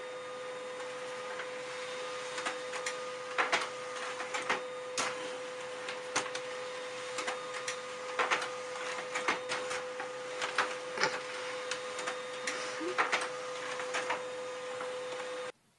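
Desktop printer running with a steady whine and hum, overlaid by irregular sharp clicks and clacks. The sound cuts off suddenly near the end.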